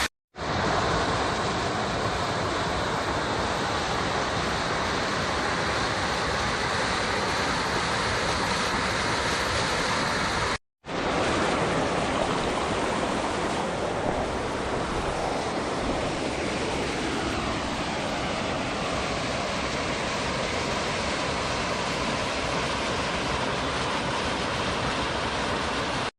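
Creek water flowing and spilling over a small waterfall: a steady, even rush, with a moment's silence about eleven seconds in.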